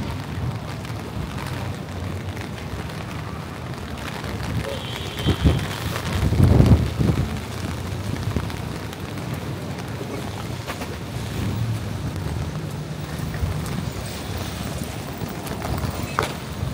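Wet city street ambience: steady traffic rumble and the hiss of rain and tyres on wet pavement, with a vehicle going past louder about six seconds in. There are faint passing voices and a few short clicks.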